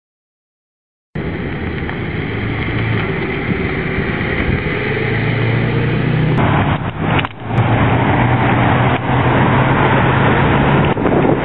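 A car engine running steadily with a low hum, after about a second of silence at the start. The sound drops out abruptly twice a little past halfway.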